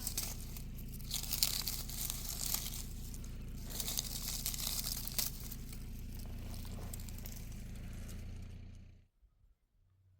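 Rustling, crackling noise over a steady low hum, cutting off abruptly about nine seconds in.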